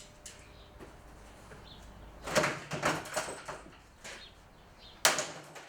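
Hard knocks of a golf club striking a plastic box fan: a quick run of several hits about two and a half seconds in, then a single loud hit near the end.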